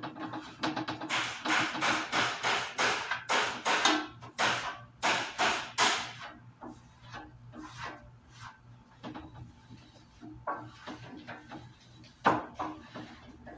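Hand wiping back and forth over a plastic sign panel in quick rubbing strokes, easing off about halfway through, with one sharp knock near the end.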